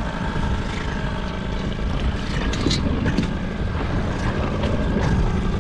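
A fishing boat's motor running steadily at trolling speed, a low even hum under a rumble of wind and water, with a few faint clicks.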